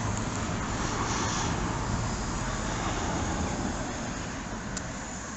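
Steady rushing noise of road traffic, easing down gradually toward the end.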